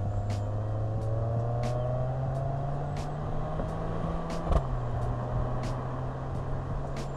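Mercedes-AMG GLE 53's turbocharged 3.0-litre inline-six under acceleration, its note rising steadily. About four and a half seconds in the pitch drops abruptly with a sharp crack at an upshift, then holds lower.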